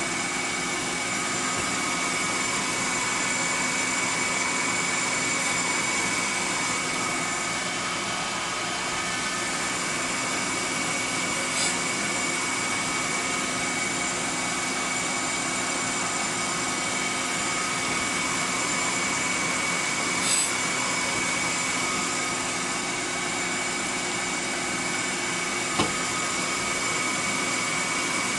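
Grinding wheel on an end mill sharpening fixture running steadily with a high whine, while the end mill's teeth are ground one at a time. A few brief clicks come about twelve, twenty and twenty-six seconds in.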